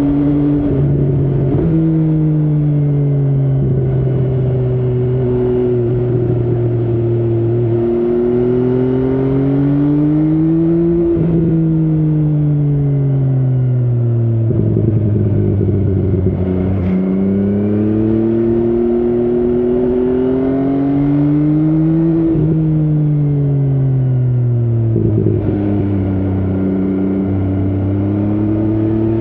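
MV Agusta Brutale 800's inline three-cylinder engine pulling through the gears on the road, its pitch climbing and falling off with the throttle, broken by several sudden pitch steps at gear changes.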